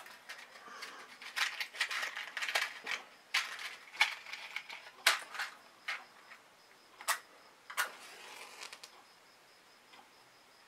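A matchbox being handled and a match struck: a run of small rattles, scrapes and sharp clicks that stops about nine seconds in.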